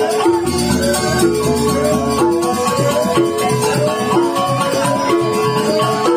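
Joged bumbung gamelan: bamboo xylophones (grantang) playing a fast melodic cycle that repeats about once a second, over kendang drums.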